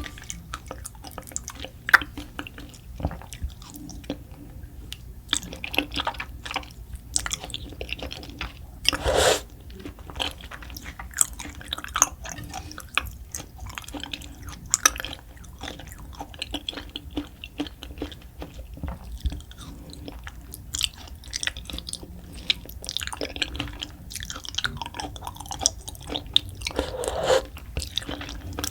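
Close-miked eating sounds of a person chewing: many short, wet smacks and clicks. There is a louder, longer burst about nine seconds in.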